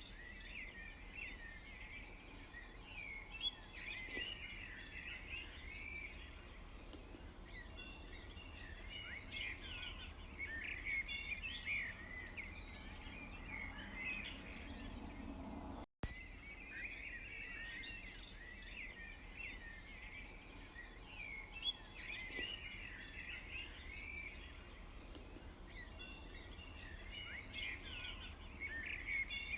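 Chorus of many small songbirds chirping and twittering over a steady low rumble. The sound drops out for an instant about halfway through.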